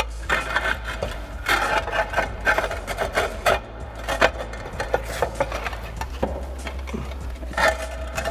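Interlocking roof tiles being slid back down into place, scraping and clacking against each other and the tiles below in irregular knocks and rubs.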